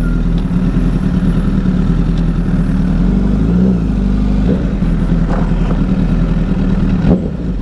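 Honda CBR1000RR's inline-four engine running steadily at low revs on light throttle while the bike rolls slowly, its pitch wavering briefly about three and a half seconds in. A single sharp knock near the end.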